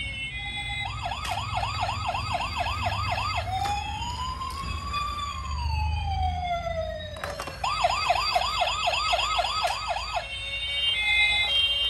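Battery-powered toy police car's electronic siren sounding: a fast yelp of about four whoops a second, then one slow rise-and-fall wail, then the fast yelp again. A short repeating electronic beep pattern plays at the start and near the end.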